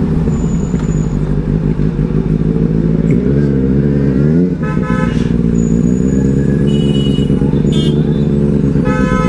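Benelli 600i's inline-four engine running under way at steady speed, its pitch dipping and climbing again about three to four seconds in as the throttle changes. Vehicle horns toot briefly about five seconds in and again near the end.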